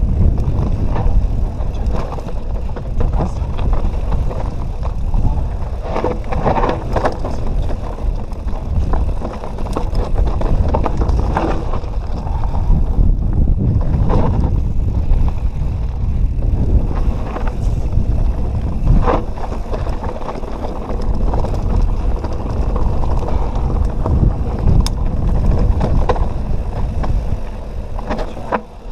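Canyon Nerve mountain bike on a rough trail: tyres rumbling over dirt and rock with frequent knocks and rattles. Heavy wind buffets the GoPro's microphone.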